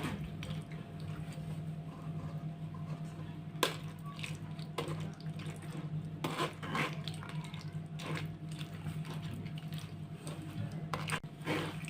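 Tamarind liquid trickling and dripping through a strainer into a bowl while a spoon stirs the pulp, with a few short clicks of the spoon against the strainer. A steady low hum runs underneath.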